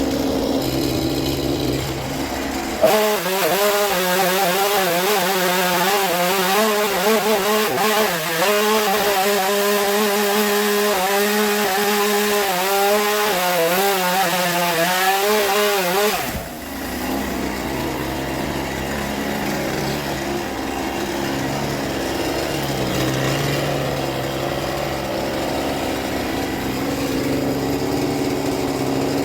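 Stihl chainsaw idling, then opened to full throttle about three seconds in and run hard for about thirteen seconds, its pitch wavering as the chain bites into peach wood. It then drops suddenly back to idle.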